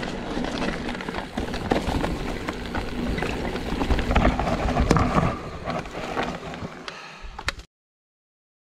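Mountain bike riding along a dirt forest singletrack: tyres rolling over dirt and dry leaves, with small knocks and rattles from the bike over the bumps. It cuts off abruptly to silence near the end.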